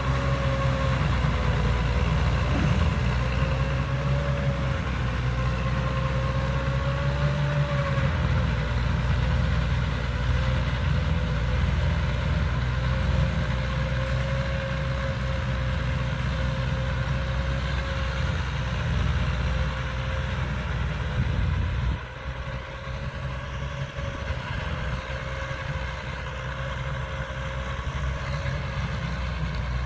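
Massey Ferguson 290 tractor's four-cylinder diesel engine running steadily under load while pulling a tillage implement through dry soil, with a wavering whine on top of the engine drone. The sound drops a step in level about two-thirds of the way through.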